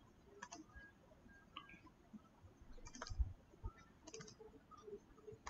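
Faint computer mouse clicks, four or so spread a second or more apart, several in quick pairs like double-clicks opening folders and a file.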